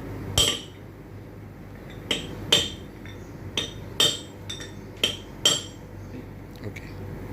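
Sharp metal-on-metal clinks and knocks, about eight of them, several in quick pairs, each with a short ringing tail. These are tools and parts striking during a Cat excavator swing motor overhaul. A steady low hum runs underneath.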